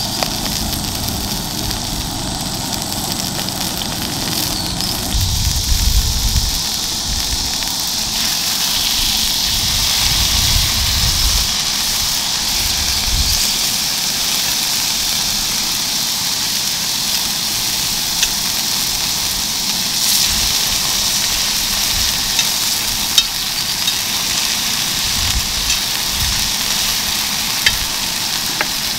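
Lamb rib chops searing on a hot griddle pan: steady sizzling of fat and meat, with occasional sharp pops of spitting fat.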